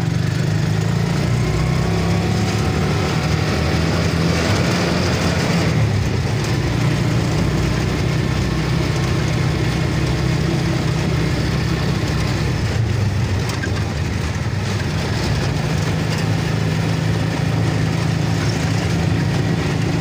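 Engine of a small motor vehicle running steadily at an even low pitch while it drives along, with a steady hiss of road and wind noise above it.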